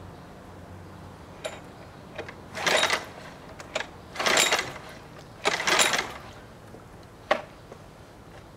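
Three pulls on the recoil starter cord of a new HDX F 2.6 four-stroke outboard motor, each a short whirr, about a second and a half apart. The engine does not catch. A few sharp clicks come between the pulls.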